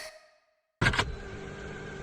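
Sample-pack one-shots previewed in turn. A pitched synth tone fades out with a slight downward slide. After a short gap, a noisy sample starts with two sharp hits and carries on as a steady rushing noise with faint held tones underneath.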